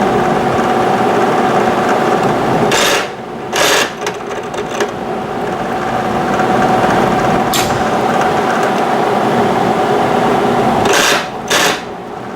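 Ridgid electric drill running steadily under load as its bit bores through the truck's steel frame bracket area. The motor sags briefly twice, about three seconds in and near the end, each time with a couple of short harsh bursts as the bit bites and breaks through the metal.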